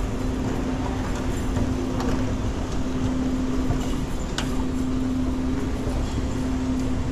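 Wheelchair rolling along a hard floor: a steady low rumble of the wheels over a constant hum, with a few light clicks and knocks, one of them about four and a half seconds in.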